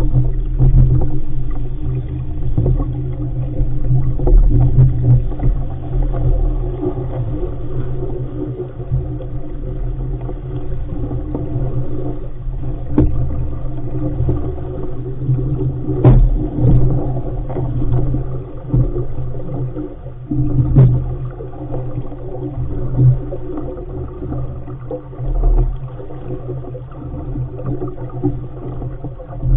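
Wind and water rushing past a small sailing dinghy under way: a loud, uneven low rumble, with a few sharp knocks.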